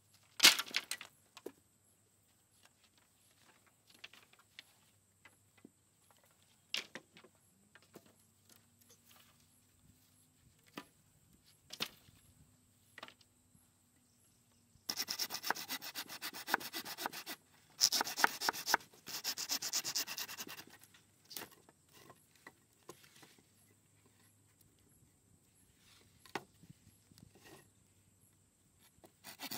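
A bundle of wooden poles dropped onto the ground with a loud clatter, followed by scattered knocks as poles are laid down. Midway there are about five seconds of fast, rhythmic scraping strokes on wood in three spells, as a hand tool works a pole, and then a few more knocks.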